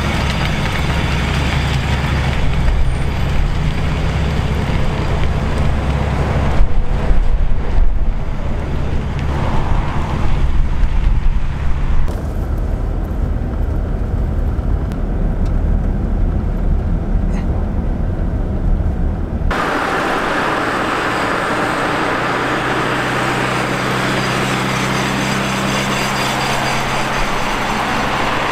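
Nissan Skyline R33's engine, first idling steadily, then louder and uneven for several seconds as the car pulls away. After that it runs along the road, muffled for a while and later steady with tyre and road noise.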